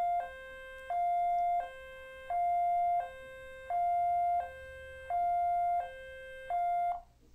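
Two-tone hi-lo siren sound effect, a higher, louder note and a lower note alternating, each held about two-thirds of a second. It plays through to the end of the clip and stops abruptly near the end.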